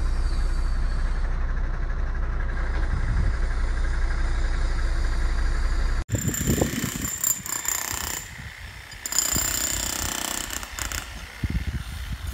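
Diesel engine of a pile-driving rig running steadily while a precast concrete pile is hoisted. About halfway through the sound cuts suddenly to uneven, harsh construction-site machine noise that surges and fades, with a high whine.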